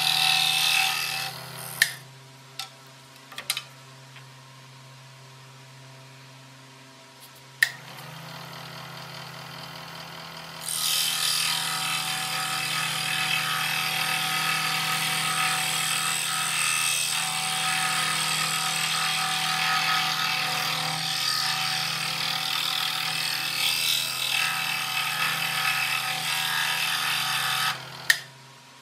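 Scroll saw cutting through a wooden board, a steady rasping buzz of the reciprocating blade. The cutting stops about two seconds in, leaving a few sharp clicks. A low steady hum comes in about eight seconds in, cutting resumes about eleven seconds in, and it stops near the end with a click.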